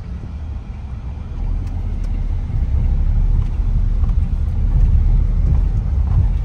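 Low road and engine rumble heard inside a moving vehicle's cabin, growing louder about a second and a half in.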